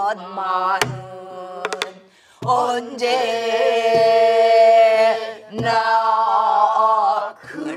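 A woman leads a class in a Korean Namdo folk song, with the group singing along and holding one long note in the middle. A stick strikes a buk barrel drum, giving a few sharp cracks and some deep thumps.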